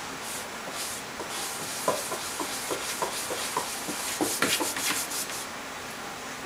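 A Ragdoll cat's paws and claws scratching and scrabbling at the cardboard inside a box: a run of rasping scrapes and sharp taps, busiest in the middle, stopping about a second before the end.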